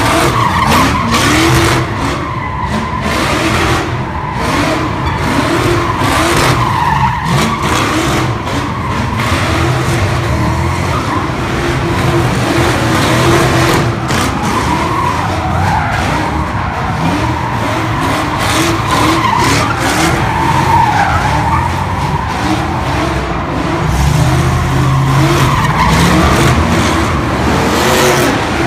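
Cars doing donuts: engines held at high revs, the pitch rising and falling, over continuous tyre squeal and skidding. A deeper engine note comes up near the end.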